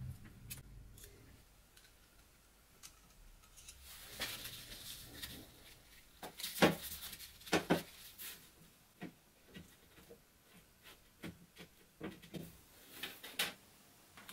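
Scattered sharp clicks, taps and brief rubbing from small parts being handled on a workbench, the loudest knocks coming about halfway through and again near the end.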